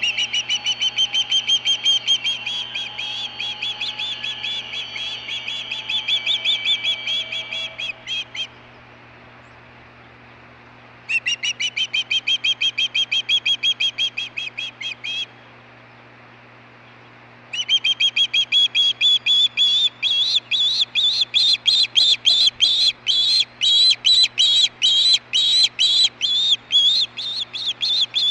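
Juvenile osprey calling: rapid runs of high, piping chirps, about four or five a second, in three long bouts separated by short pauses, the last bout the loudest.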